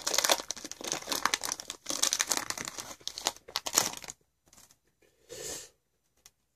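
Foil booster-pack wrapper being crinkled and torn open, a dense crackle that stops about four seconds in, followed by a couple of faint soft rustles.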